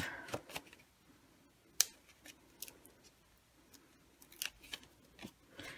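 Faint fingernail clicks and paper ticks as the backing is picked off foam adhesive dimensionals on a cardstock layer, with one sharper click about two seconds in and small scattered ticks after it.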